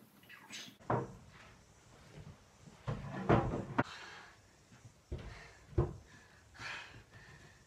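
Several knocks and thumps with rustling in between as a person gets up off the floor and handles a clear plastic chair. The sharpest knocks fall a little over three seconds in.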